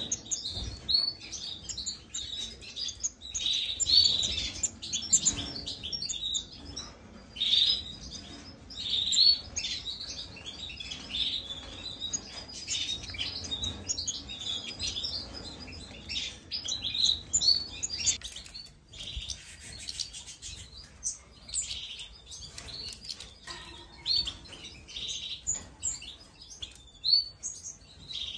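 A group of small cage finches, European goldfinches and serins among them, chirping and twittering in many short, high, overlapping calls with hardly a pause.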